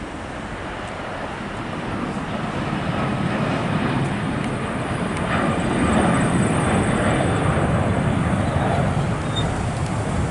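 Airbus A340-600's four Rolls-Royce Trent 556 turbofans at takeoff thrust as the jet climbs out, a broad jet rumble and roar. It grows louder over the first six seconds, then eases slightly.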